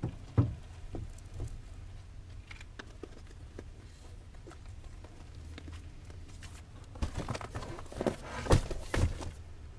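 Shopping items and bags knocking and rustling as they are lifted from a cart and loaded into a car, over a low steady rumble. A couple of knocks come at the start, and a burst of rustling and thuds near the end, the loudest as a box of wipes is set down on the seat.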